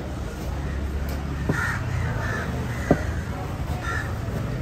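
Crows cawing several times, with two sharp knocks of a knife chopping tuna on a wooden board, about one and a half and three seconds in.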